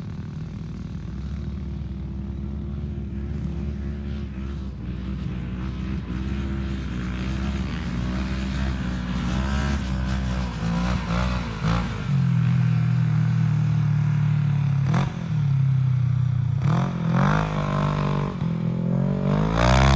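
Off-road vehicle engines running on the sand dunes: a steady engine note that grows louder about twelve seconds in, with other engines revving up and down as they pass, and a rising rev near the end.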